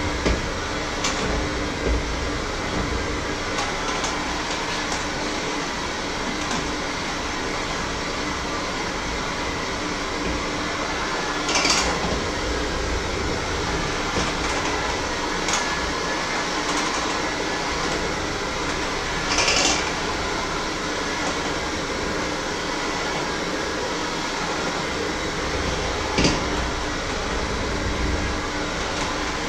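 Electric hand mixer running steadily in a bowl, with a few brief louder clatters of the beaters against the bowl.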